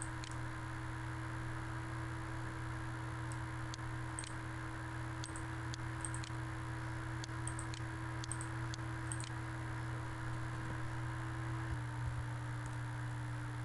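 Steady electrical hum and hiss of a desk recording setup, with faint short clicks scattered through it about once a second.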